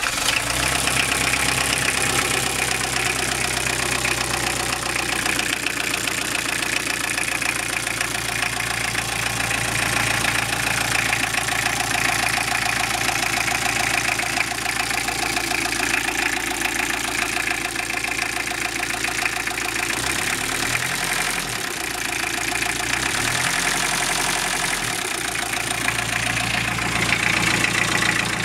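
Toyota Estima Emina's 3C-TE turbodiesel engine idling just after starting, with a rapid knock in the engine. The idle speed wavers briefly twice about twenty seconds in.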